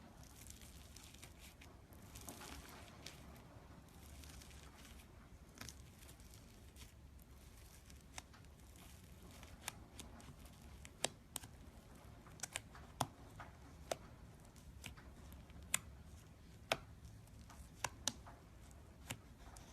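Hands playing with slime: faint sticky rustling, then scattered sharp clicking pops that come more often in the second half.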